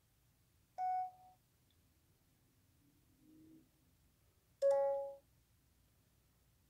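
Two short electronic beeps from a phone, one about a second in and another about four seconds later; the second is a little lower in pitch and louder.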